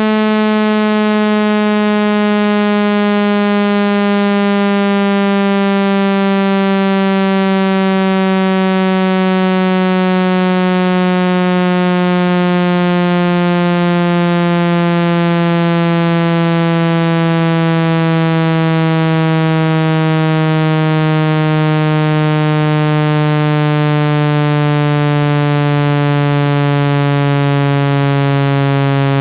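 Synthetic speaker-cleaning tone, meant to shake dust and water out of a phone speaker: a loud, buzzy tone with many overtones, sliding slowly and steadily down in pitch.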